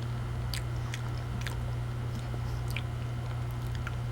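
A person chewing a full mouthful of banana, with small wet clicks of the mouth every half second or so, over a steady low hum.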